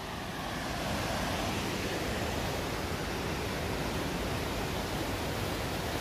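Steady rushing roar of a waterfall, a broad even wash of water noise that grows slightly louder about a second in.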